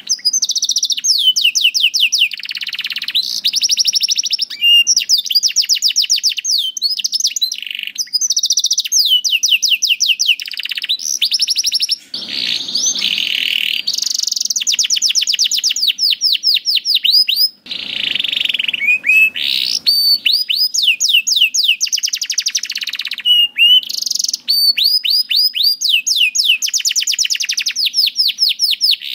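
Canary singing a long, continuous song of rapid trills. Each run repeats one note quickly before switching to a new note, with short gaps about twelve and eighteen seconds in.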